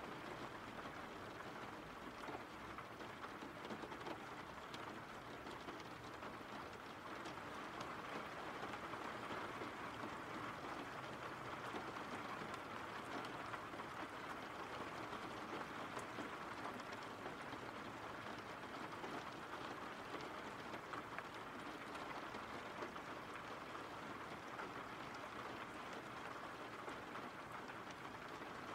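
Faint, steady rain falling, heard as a continuous even hiss of drops with no thunder.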